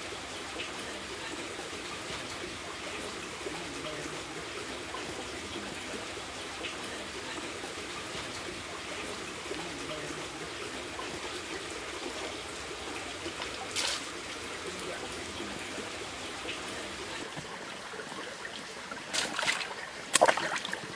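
Shallow forest stream trickling over rocks. A single sharp splash or knock comes about two-thirds through, and near the end a few loud splashing footsteps come as someone walks through the water.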